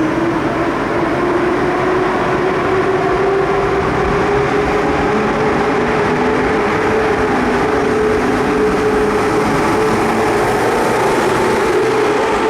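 A train moving through a railway station: a steady rumble with a motor whine that slowly rises in pitch.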